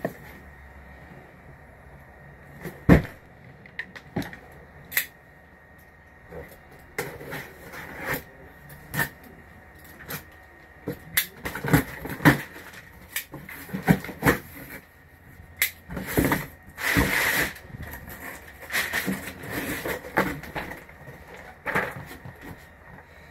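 Cardboard shipping box and packaging being handled and opened: irregular knocks, taps and flap rustles, with a sharp knock about three seconds in and a longer scraping rustle of cardboard around seventeen seconds in.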